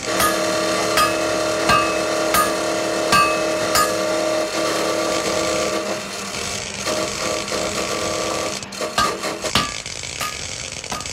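Construction work on steel: hammer blows ringing on metal roughly every three-quarters of a second over a steady hum, then a quick run of knocks and clatter about nine seconds in.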